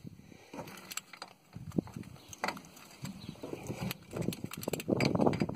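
Half-inch socket ratchet with extension working the drain plug of a 1942 Ford GPW Jeep's front differential loose: irregular ratchet clicks and metal knocks, busier in the second half.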